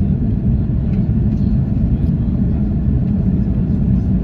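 Airliner cabin noise: a steady low rumble of jet engines and airflow heard from inside the passenger cabin.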